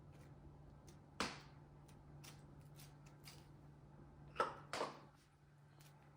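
Light household handling sounds: three short knocks, one about a second in and two close together past the four-second mark, among faint clicks over a low steady hum.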